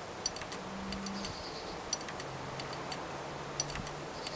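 1939 Gent's Pulsynetic waiting-train turret clock movement running, its mechanism making sharp metallic clicks in quick, uneven clusters.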